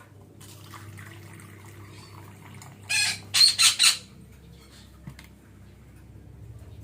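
Parakeet (betet) calling: four loud, harsh squawks in quick succession about three seconds in, over a low steady background hum.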